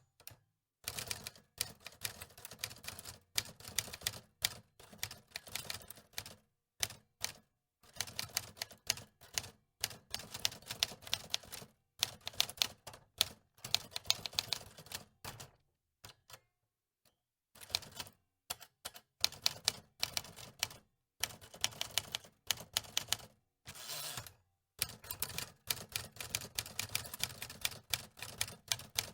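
Antique typewriter keys clacking in quick runs of strokes, broken by a few short pauses.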